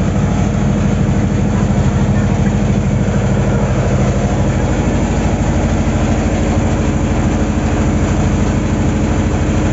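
Boat engine running steadily with a low, even throb.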